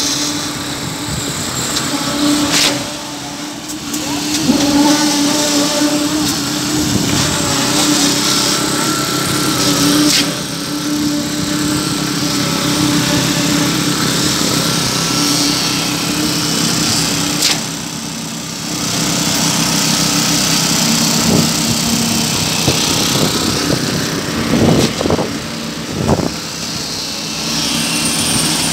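Engine of a concrete pump running steadily while pumping concrete for a slab pour, with a few sharp knocks and clatters, several of them grouped near the end.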